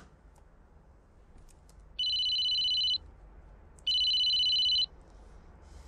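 Mobile phone ringing with an electronic ringtone: two rings about a second each, with a short pause between.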